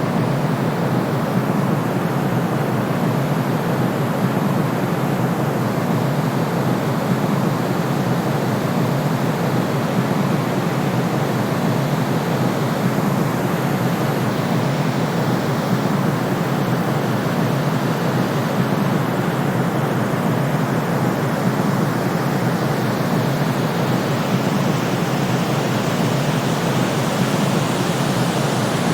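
Steady white-noise sleep sound: an even, unbroken hiss, weighted toward the deep end and softer in the highs, with no change or events in it.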